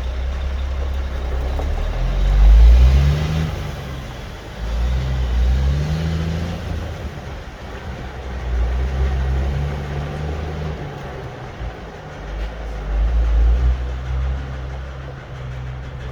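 Motor vehicle engine running under a heavy low rumble, its pitch rising twice early on as it accelerates, then holding steady.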